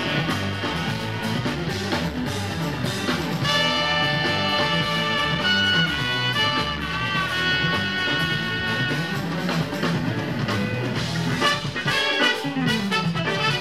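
Jazz-fusion band playing live: trumpets, electric guitars, keyboard, bass and drums, with long held notes through the middle.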